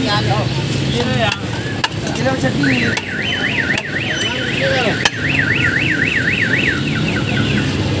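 Car alarm warbling, its pitch sweeping rapidly up and down about three times a second; it starts a few seconds in and stops near the end. It sounds over a steady street din with a few sharp clinks.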